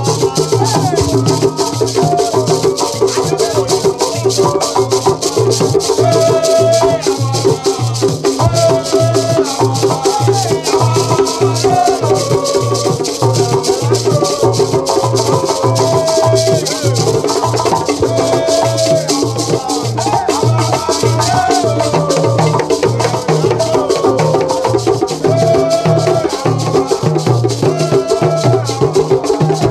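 Group of men singing together to a fast, steady beat on square wooden frame drums, with a bead-netted gourd shaker rattling along.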